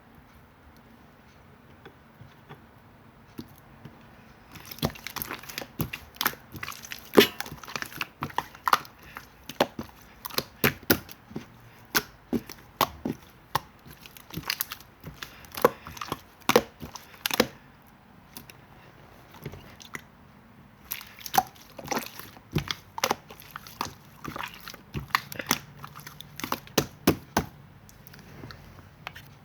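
Slime being squished and pressed by hand, giving rapid runs of sharp clicking pops. There are two long bouts, the first from about five seconds in and the second after a short lull.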